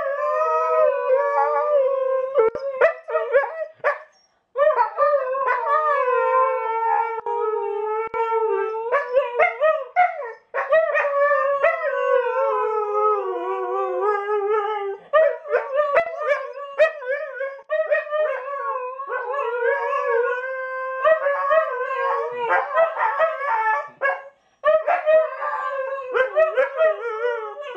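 Siberian husky howling: long drawn-out howls that waver and slide in pitch, broken by a few short pauses.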